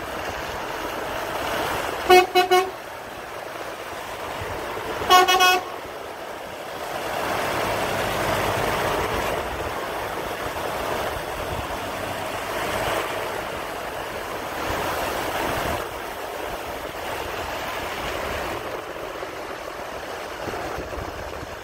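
Truck horn tooting: three quick blasts about two seconds in and three more about three seconds later. Then the running of Renault tractor units' diesel engines as they drive out over the icy yard, loudest when one passes close by.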